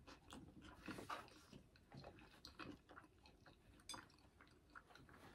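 Faint, irregular mouth clicks and soft smacks of a person chewing food.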